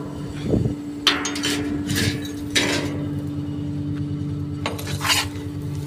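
A tipper truck's diesel engine running steadily while a hand tool scrapes and knocks wet iron ore fines off the steel tipper body in a few short strokes. The ore is wet, so it sticks to the body and has to be scraped loose.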